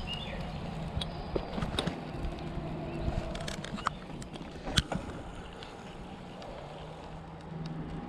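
Riding a bicycle along a street: a steady low rumble of wind and tyre noise, with a few sharp clicks and rattles, the loudest a little under five seconds in.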